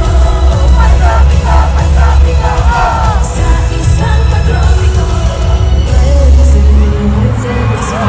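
Live pop concert music over loudspeakers: a heavy, booming bass with a singing voice, and the crowd yelling and whooping along.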